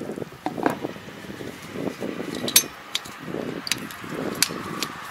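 Several sharp metallic clinks and rattles as gloved hands handle the metal gearbox casing of a Kobashi rotary tiller, amid soft rustling.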